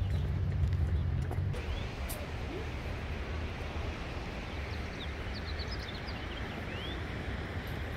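Outdoor ambience: a steady hiss with a low rumble that drops away about a second and a half in, and scattered short high chirps.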